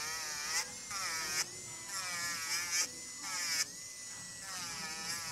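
Electric nail drill with a sanding band bit grinding an acrylic nail in repeated side passes. Its whine wavers in pitch with a gritty grinding hiss during each pass against the nail and holds steady in between, about four passes.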